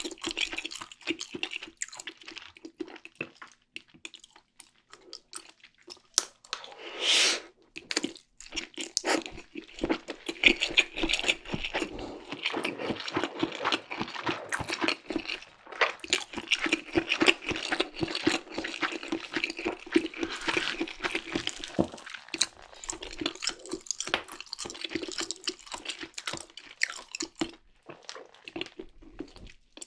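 Close-miked mouth sounds of a person eating Indomie Mi Goreng instant fried noodles: steady chewing with many small wet clicks and smacks, and one longer, louder slurp about seven seconds in.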